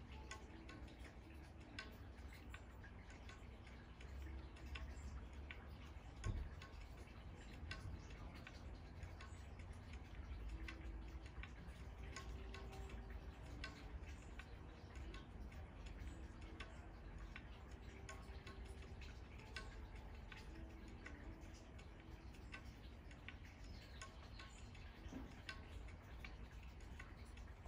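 Faint outdoor ambience: scattered light ticks over a steady low rumble, with a single soft thump about six seconds in.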